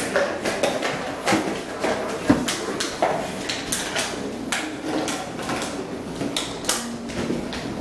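Sheepadoodle puppies scampering and play-wrestling on a tiled floor: a busy, irregular clatter of claws clicking and scraping on tile, with small knocks.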